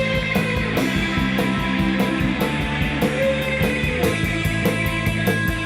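A rock band playing: a drum kit keeps a steady beat under sustained guitar and bass chords, with a held melody note that recurs every couple of seconds.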